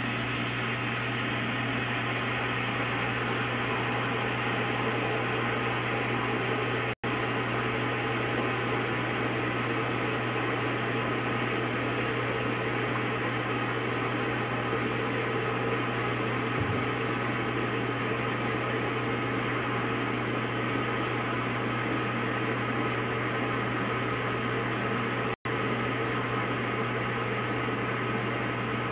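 Steady hiss with a constant low hum from the sewer inspection camera's audio, unchanging throughout and dropping out completely for an instant twice, about 7 seconds in and near the end.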